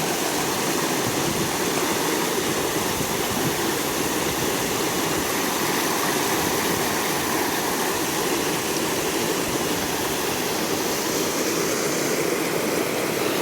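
Steady rush of flowing river water from the Niyodo River.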